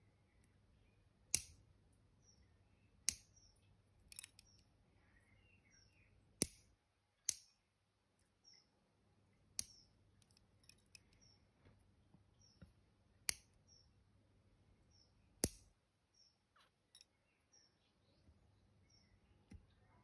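Nail clipper cutting through toenails: a sharp snap with each cut, about eight in all at uneven gaps of one to four seconds.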